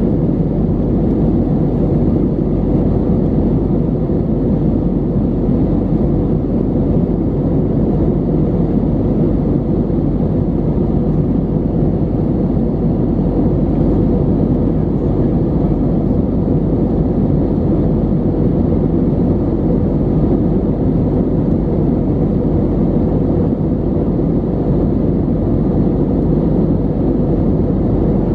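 Steady, deep cabin roar inside an Airbus A320neo in flight, heard from a window seat over the wing: engine and airflow noise running evenly without change.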